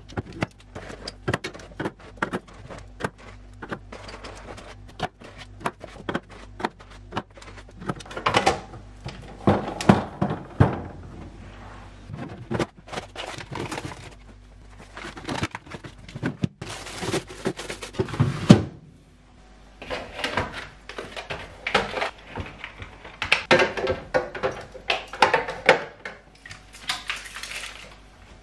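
Clear plastic fridge organiser bins and drawers, with food packs, being set down and slid on a fridge's glass shelves: a run of light knocks, clicks and thunks with short scuffing stretches in between.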